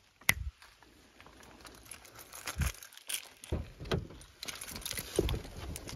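Rustling and crinkling handling noises, with a sharp click just after the start and a few soft thumps.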